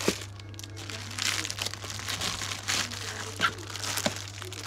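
Cellophane shrink-wrap crinkling as plastic-wrapped eyeshadow palettes are handled and shifted inside a cardboard box, in irregular rustles with a few sharp knocks.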